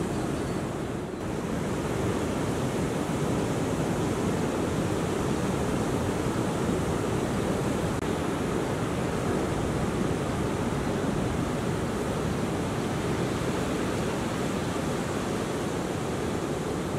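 Ocean surf: waves breaking over a sand bar and whitewater washing in, a steady rushing noise with a brief lull about a second in.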